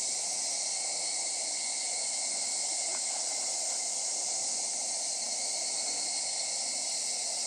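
Steady high-pitched hiss of outdoor ambience, with a faint tick about three seconds in.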